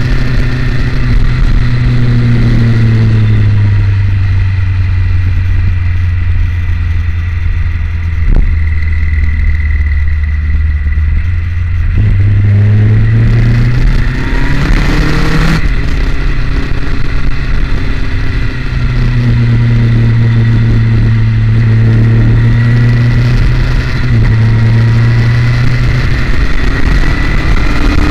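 Motorcycle engine running under way with rushing wind. The engine note drops as the bike eases off a few seconds in, holds steady, then climbs as it accelerates about twelve seconds in, and dips and climbs again later.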